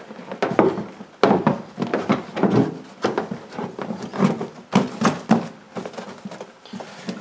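Textured black spare-tyre cover being pulled over a spare wheel and smoothed down by hand: irregular rustling and crinkling with soft knocks, one sharper knock about a second in.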